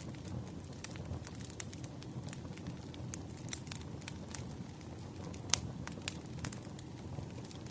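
Campfire crackling: a steady low rumble of burning wood with frequent sharp pops and snaps at irregular intervals, one louder pop about five and a half seconds in.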